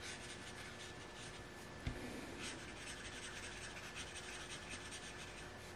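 Black felt-tip marker scratching on paper in quick, repeated back-and-forth strokes as it colors in a dark area. One low thump about two seconds in.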